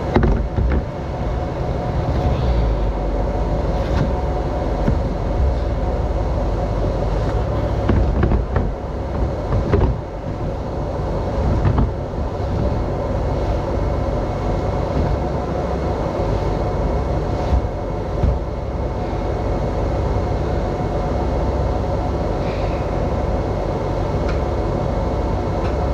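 Farm machinery engines running steadily, a low rumble with an even hum, while fertilizer is loaded from a tender into the planter; a few knocks and clunks come about a third of the way in.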